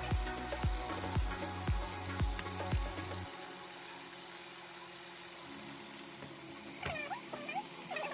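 Pork steaks frying in oyster-sauce marinade in a frying pan, with a steady sizzle. Background music with a low beat about twice a second plays over it and drops out about three seconds in.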